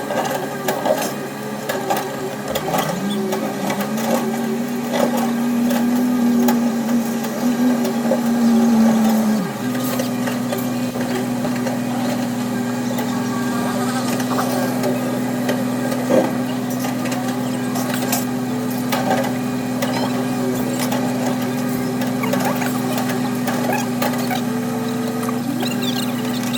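Caterpillar 320C excavator's diesel engine running under load. Its pitch rises about three seconds in, holds, then drops and settles near ten seconds, with scattered knocks and clanks throughout.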